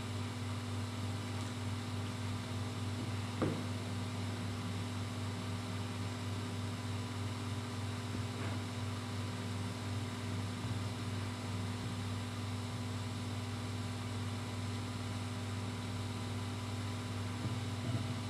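A steady low electrical hum, with one short click about three and a half seconds in and a few faint ticks later.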